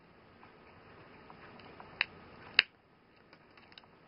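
Two sharp clicks of hard plastic about half a second apart, then a few faint ticks, as the yellow plastic parachute pack of a 1994 Tiger Toys Linka action figure is handled and its strap pressed into place.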